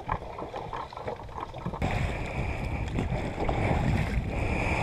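Water splashing and rushing around an inflatable dinghy, with wind on the microphone; the sound steps up louder and more even about two seconds in.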